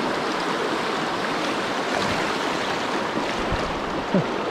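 Shallow river riffle running over rocks, a steady rush of water close to the microphone, with one short louder gurgle near the end.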